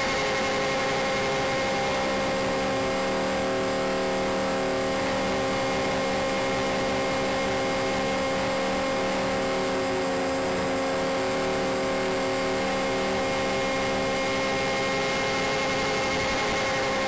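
Radio-controlled scale C-124 Globemaster model's motors and propellers running steadily in flight, heard from a camera mounted on the wing: an unchanging whine of several tones over rushing air noise.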